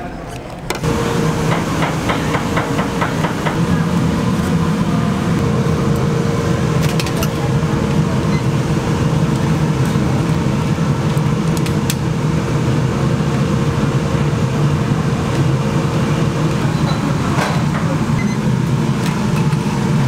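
Commercial kitchen noise: a large noodle-cooking pot at a rolling boil, with a steady hum that stops a few seconds before the end. A few sharp metallic clinks come from the stainless mesh strainer baskets.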